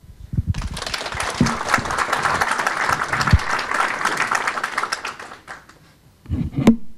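Audience applauding, starting about half a second in and fading out after about five seconds.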